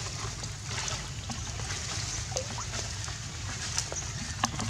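Water sloshing and splashing as long-tailed macaques swim and play in a pool, with scattered small splashes and a steady low rumble underneath.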